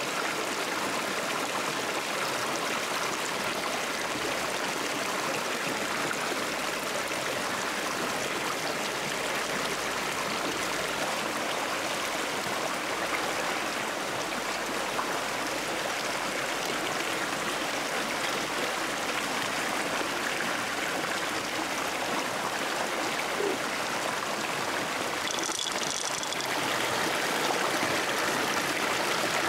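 Steady rush of a small stream cascading over rocks, an even, unbroken sound of running water.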